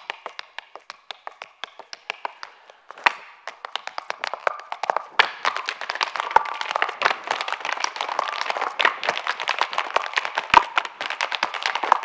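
Irish hard-shoe step dancing: rapid percussive taps of dance shoes on the stage, sparser at first and thickening into a dense, louder rattle after a sharp strike about three seconds in.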